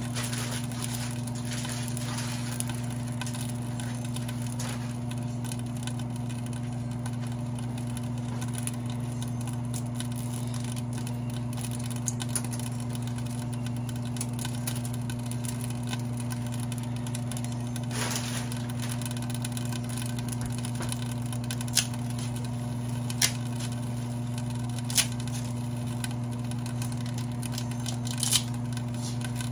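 A steady low hum with a few light clicks and taps scattered through it, the sharpest ones in the last third.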